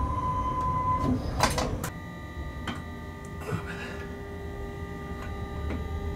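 Cab noise of a locomotive running along the track: a steady high whine, a short noisy burst about a second and a half in, then the running sound drops and several different steady whining tones take over.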